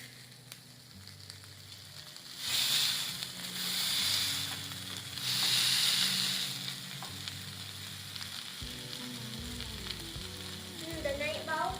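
Beef steak frying in a hot pan, sizzling. About two seconds in the sizzle swells loudly in a few waves, then settles to a steadier, quieter sizzle.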